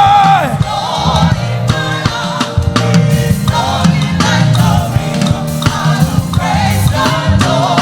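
Gospel praise song played by a band with drum kit and bass under a steady beat, with a lead singer's long held note ending about half a second in and further sung phrases over the groove.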